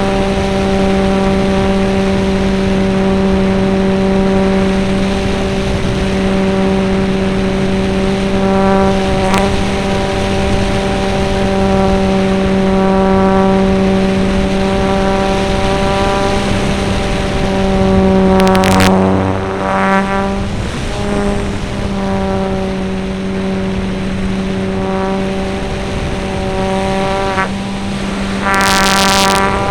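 Model airplane's motor and propeller running at a steady high drone, heard from a camera mounted on the plane. Two brief louder bursts of noise come about two-thirds through and near the end.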